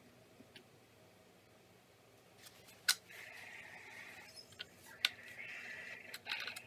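Hands working on the plastic underside of a Dell Inspiron N5110 laptop: a sharp click about three seconds in and another about five seconds in, each followed by about a second of scraping.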